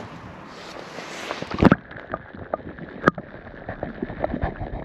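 A camera plunging into a tide pool: a rising rush of water ends in a splash about a second and a half in. The sound then turns muffled underwater, with scattered clicks and knocks, one sharper click about three seconds in.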